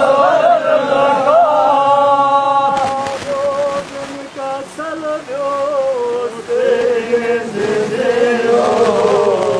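Group of men chanting a Shia mourning lament (noha) together, one held melodic line with slow bends in pitch, dipping a little in loudness midway.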